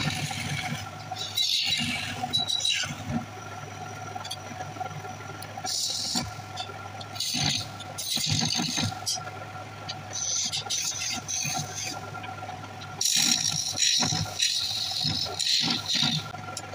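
Wood lathe running with a steady hum while a hand-held turning chisel cuts into the spinning wooden blank. The cuts come as repeated bursts of high scraping, each about a second long.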